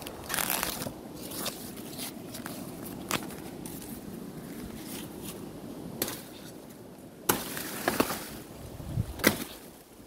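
Rustling and crackling of dry banana-leaf litter with scattered sharp knocks and clicks, the loudest cluster in the second half, as the phone is picked up and handled while someone moves through the leaves.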